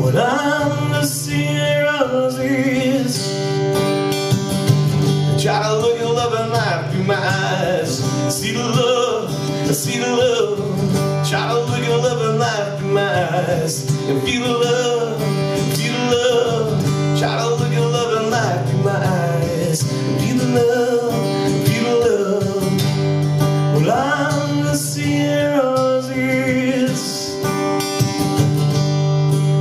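Live country-style song in an instrumental passage: guitar chords under a lead melody whose notes slide and bend.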